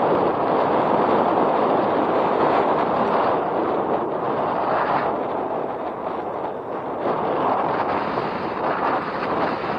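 Wind rushing over the microphone while riding: a steady, loud noisy rush that swells and eases slightly, dipping a little around the middle.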